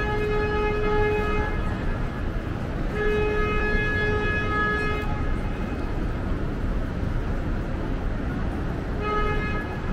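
A vehicle horn honking in street traffic: a long steady blast that stops about a second and a half in, a second long blast from about three to five seconds in, and a short toot near the end, over a constant low traffic rumble.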